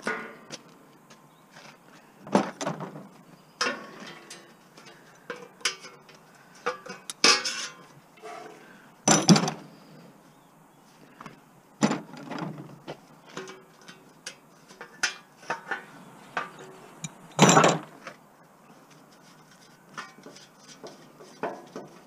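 Metal barbecue parts clanking and clattering while a barbecue is taken apart by hand for scrap, a string of irregular knocks and clinks with two louder clanks about nine and seventeen seconds in.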